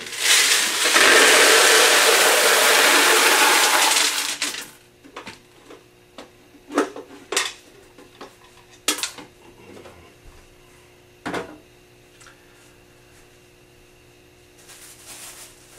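M&M's candies poured out of a clear plastic canister, a loud rattling rush lasting about four and a half seconds. Then scattered knocks as plastic candy tubs are handled and set down, and a soft plastic rustle near the end.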